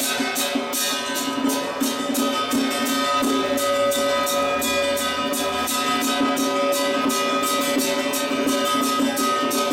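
Traditional ritual music: instruments holding long, steady notes over a fast, even percussion beat.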